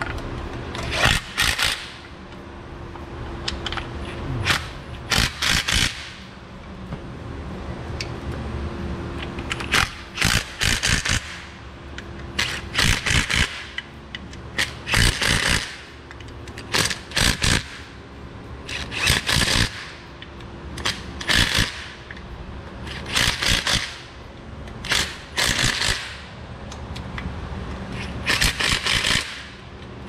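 Hand ratchet wrench clicking in short bursts of quick strokes about every two seconds as bolts are run in, over a steady low hum.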